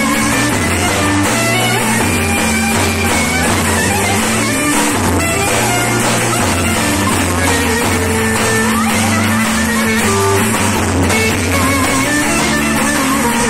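Loud dance music with a bass line and a melody, playing without a break.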